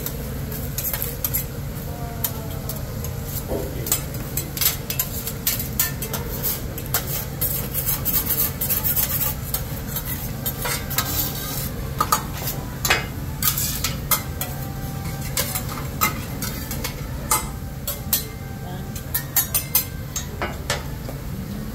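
Metal spatulas clanking and scraping on a steel hibachi griddle as fried rice is stirred and tossed, with many sharp, irregular clacks over a steady sizzle of food frying on the hot plate.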